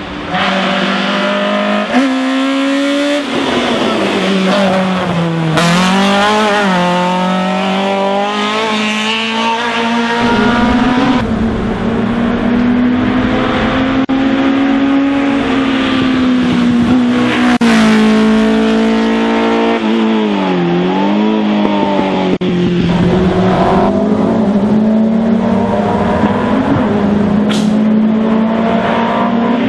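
Engines of small racing touring cars running hard uphill, revving high. The pitch dips several times as they shift gear and lift for the bends, and rises again as they accelerate, with one car passing and the next coming up behind it.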